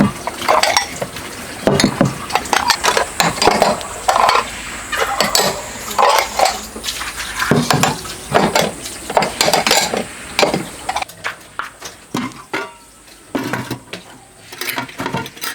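Dishes and metal utensils clattering and clinking in quick, irregular knocks, thinning out in the last few seconds.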